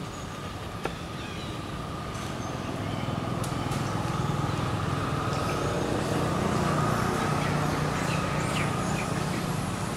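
A motor vehicle going past on the road, its low engine rumble swelling to a peak about two-thirds of the way through and then easing off. A single sharp click about a second in.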